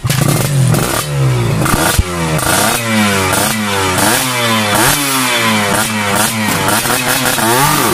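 Two-stroke Kawasaki motorcycle engine revved over and over through its aftermarket exhaust silencer, the pitch rising and falling about twice a second.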